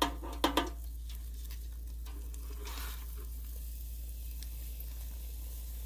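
A donut frying in hot oil in a deep fryer, giving a steady sizzle, with a couple of sharp clicks near the start as metal tongs reach into the wire basket to pull out the parchment paper.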